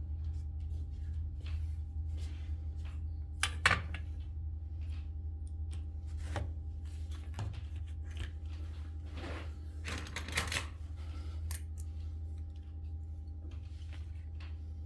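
Steady low electrical hum with scattered light clicks and taps of small tools and parts being handled. The loudest taps come a few seconds in and as a short cluster about ten seconds in.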